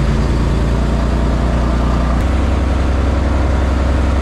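Tiller-steered outboard motor running steadily as a small boat travels under way, with wind and water noise. The engine note shifts about two seconds in.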